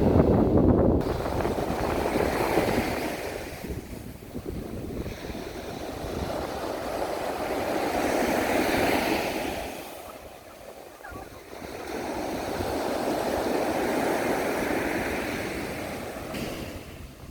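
Gentle sea waves washing onto a sandy beach, swelling and fading in slow surges every few seconds.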